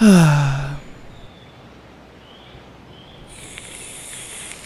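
A person's drawn-out groan, falling in pitch, lasting under a second; it is the loudest thing here. A steady high hiss follows about three seconds later.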